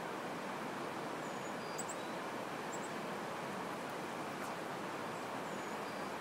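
Steady rush of river water running over a shallow, rocky riffle. A bird gives a few faint, high, short chirps over it.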